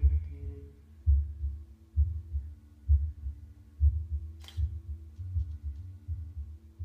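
Heartbeat sound from the show's soundtrack: deep paired thumps, a strong beat and a weaker one, coming about once a second over a low steady hum. A single sharp click sounds about four and a half seconds in.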